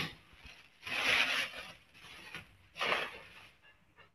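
Three short bursts of rubbing, scraping noise about a second apart, carried over a video-call microphone, fading away near the end.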